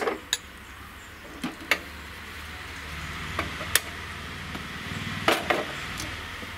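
A steel ladle knocking against an aluminium pressure cooker a few times, then a gas-stove burner lit with a hand-held lighter: a sharp click about three and a half seconds in, followed by the steady hiss of the flame. Near the end, a couple of knocks as the cooker is set down on the burner.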